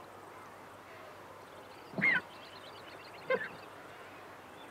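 Griffon vultures calling at the nest: two short calls, one about two seconds in and a shorter one about a second later, as the adult begins feeding its chick.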